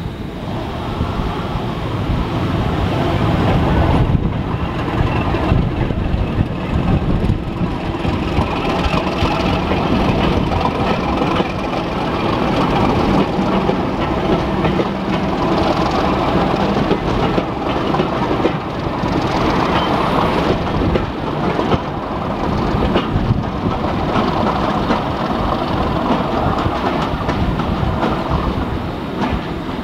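Diesel locomotive running under power as it hauls a train of coaches past, with the wheels clicking over the rail joints as the coaches roll by.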